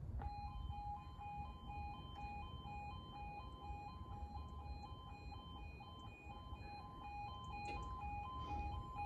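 Level crossing audible warning alarm starting up as the crossing begins to close: an electronic two-tone yodel alternating between two pitches about twice a second.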